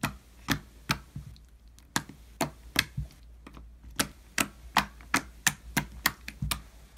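A fingertip repeatedly poking into a lump of slime, each poke a short sharp tap; about sixteen pokes, uneven at first and quickening to about three a second in the second half.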